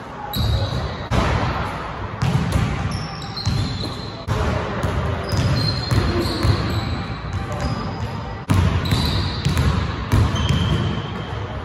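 Basketball dribbled hard on a hardwood gym court during a pickup game, with repeated bounces and short, high sneaker squeaks.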